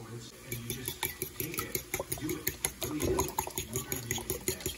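Metal fork whisking raw eggs in a ceramic bowl. The tines click quickly and evenly against the bowl, about five times a second, over the slosh of the beaten egg, starting about half a second in.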